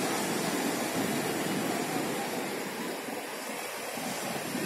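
Sea surf breaking and washing up a sandy beach: a steady rush of water noise that eases slightly past the middle.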